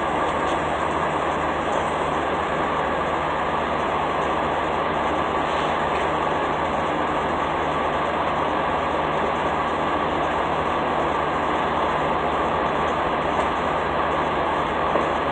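Semi-truck diesel engine idling close by: a steady drone that does not change.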